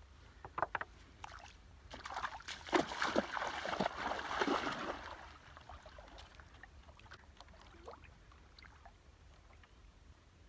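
Water sloshing and splashing as a person wades into a shallow pond, an irregular run of splashes loudest from about two to five seconds in, then dying away to faint small sounds.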